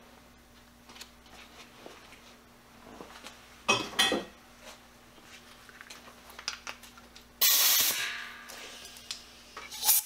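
Drill press running a DeWalt hole saw slowly through a metal plate, the saw's teeth roughly re-sharpened with a cutting disc, with a steady hum and scattered scraping clicks. About seven and a half seconds in comes a short, loud hiss of compressed air blowing the chips out of the cut.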